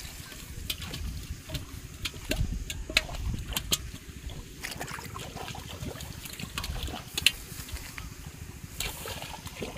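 Bare feet wading and splashing through shallow muddy ditch water, with an aluminium pot being moved through it, and scattered short sharp clicks throughout.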